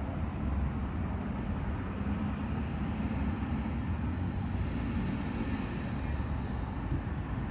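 Steady low outdoor rumble with no distinct events, the kind of background noise of a city courtyard.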